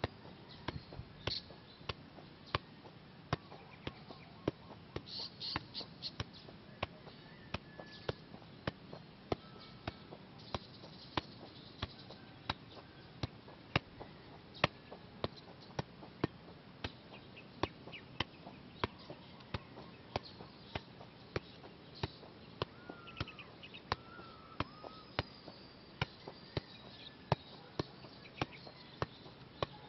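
A soccer ball being juggled: short, dull thuds of each touch on the ball, about two a second, in an even rhythm.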